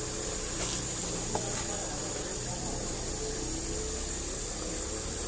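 Steady background noise with a low rumble and a high hiss, with faint wavering sounds underneath and a single short click about a second and a half in.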